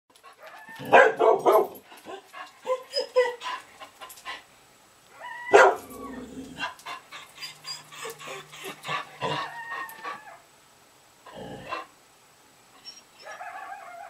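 A dog barking indoors in irregular bouts, the loudest barks about a second in and again around five and a half seconds, with smaller barks and yips between.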